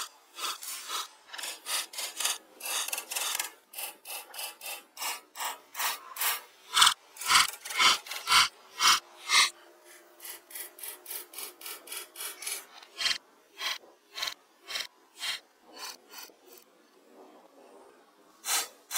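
Wooden poles and branches being handled and fitted by hand: a run of short scrapes and knocks of wood on wood, about two a second, with a few deeper thumps midway through.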